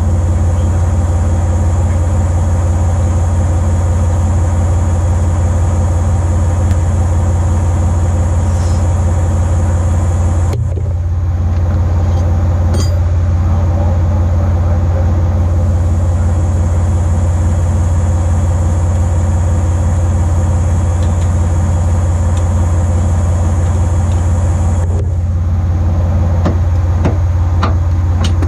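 An engine running steadily at idle, a loud low hum that does not change. A high hiss rides over it and cuts off about ten seconds in, returns, and stops again near the end, where a few light metallic taps are heard.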